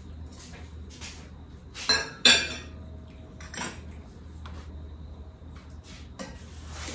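Dishes and cookware clattering: two sharp clinks close together about two seconds in, then a lighter one, with smaller knocks around them.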